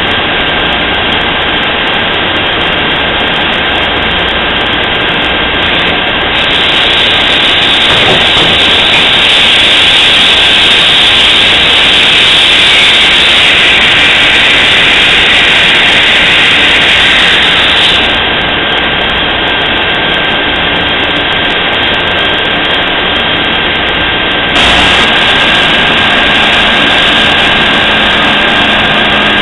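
Cincinnati Maxim 630 horizontal machining center running, a steady mechanical whine with a constant high tone over a loud hum. It grows louder for about twelve seconds in the middle while the pallet changer shifts the pallet off the receiver.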